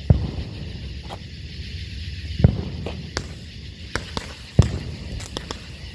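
Consumer fireworks going off: three louder bangs about two seconds apart, the last the loudest, with smaller pops and crackles between them.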